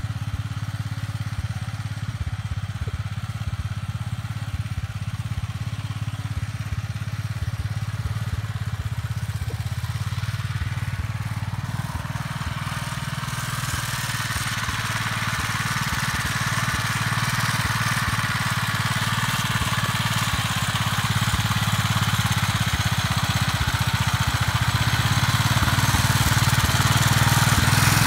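Gravely Model L walk-behind tractor's single-cylinder engine running steadily, getting louder from about halfway through.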